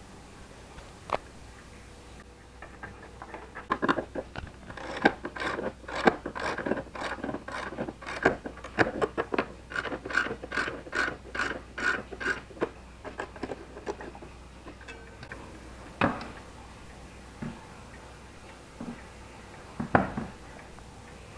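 Pendulum wall clock being wound with its crank key: a quick run of ratchet clicks lasting about ten seconds, followed by a few separate knocks near the end.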